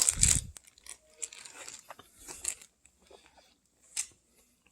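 Crinkling and crunching handling noises: a loud crackly burst at the start, then scattered faint crackles and small clicks, with one sharper click about four seconds in.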